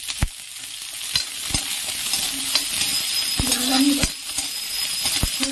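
Chopped green chillies sizzling in a spoonful of hot oil in a kadhai. A metal spatula stirs them, knocking and scraping against the pan several times.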